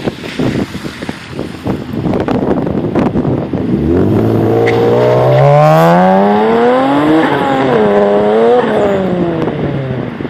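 Turbocharged Hyundai Tiburon V6 engine and exhaust, at first a rough, noisy rumble. About four seconds in, the engine note rises steadily in pitch, dips briefly, climbs again and then falls away near the end.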